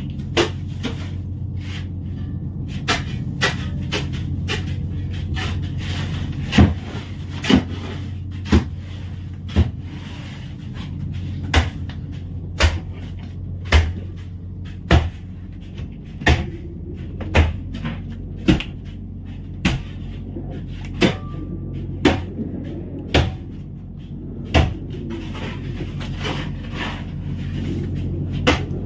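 Sharp knocks in a fishing boat's fish hold, coming at about one a second for most of the stretch, over the steady low hum of the boat's running engine.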